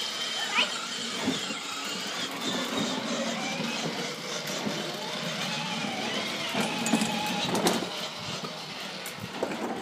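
Electric motor and gearbox of a 12V kids' ride-on BMW X5 toy car running as it drives across patio paving slabs.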